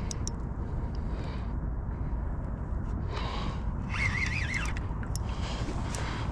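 Steady low wind rumble on the microphone, with a short warbling high-pitched chirp about four seconds in, a brief hiss shortly before it, and a few faint clicks.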